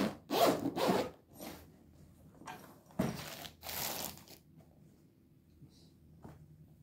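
Handling noise from unpacking a shotgun case: the case opening and the clear plastic bags around the gun's barrels and stock rustling and crinkling under the hands, in a burst in the first second and another around three seconds in, then only faint small sounds.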